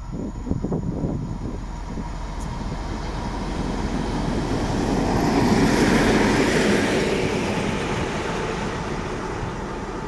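M62 'Gagar' diesel locomotive running light and passing close by, its two-stroke V12 diesel engine and running gear growing louder to a peak about six seconds in, then fading as it moves away.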